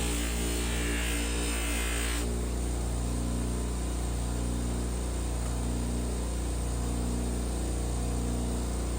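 Steady low electrical or motor hum with a buzzy ring of overtones. A hiss over it cuts off suddenly about two seconds in.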